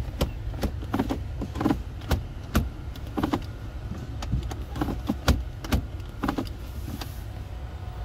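Volvo V60 automatic gear selector being moved repeatedly through its positions, its lever clicking sharply and irregularly, about two or three clicks a second, until near the end. A steady low car hum runs beneath.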